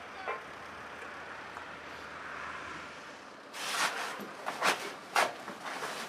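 Steady outdoor background noise, then from about halfway a series of sharp knocks and scrapes, roughly two a second, as clay roof tiles and timbers are worked loose by hand from a roof being demolished.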